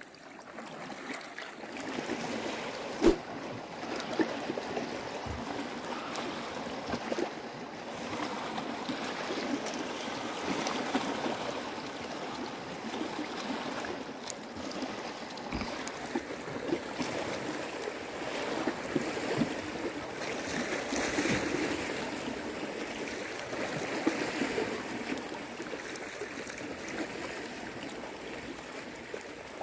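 Small sea waves washing steadily against a rocky shore, with a few sharp clicks and knocks, the loudest about three seconds in.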